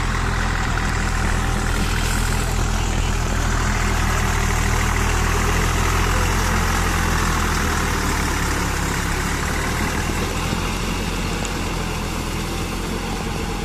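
Same Deutz-Fahr 50 hp four-wheel-drive tractor's diesel engine running steadily while it pulls a rotavator through wet paddy mud, getting a little quieter near the end.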